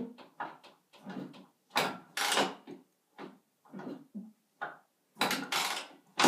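Kick-starting a 1999 Honda CR125's single-cylinder two-stroke engine from cold: two clattering kicks, about 2 and 5 seconds in, turn the engine over without it catching.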